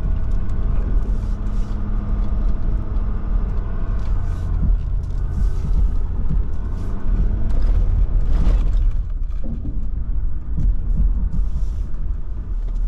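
Pickup truck running and rolling slowly over a rough, sandy dirt track, heard from inside the cab: a steady low engine and road rumble with a few knocks from the bumps.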